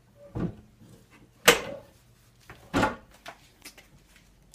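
Wooden kitchen cabinet door knocked open and shut by a toddler's hands: three knocks about a second apart, the middle one the loudest, then a few light taps.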